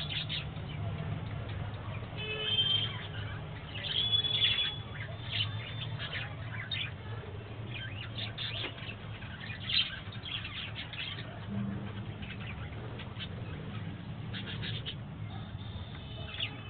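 Budgerigars chirping and warbling in scattered short calls and whistles, over a steady low hum.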